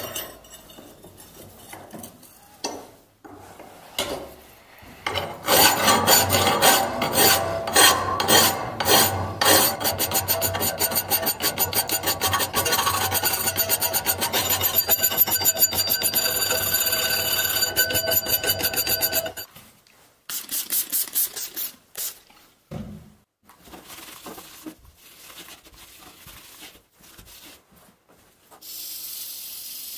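Round hand file rasping along the inner curve of a steel hatchet head cut from an old saw blade, in a long run of quick, regular strokes. It pauses briefly, then comes a few more separate strokes.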